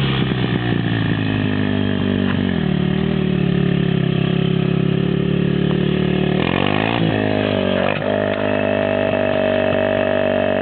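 Daelim VS 125 motorcycle's small V-twin engine being revved: the pitch climbs a couple of seconds in and holds high, drops back about six and a half seconds in, then runs steady at a lower speed with a steady whine over it.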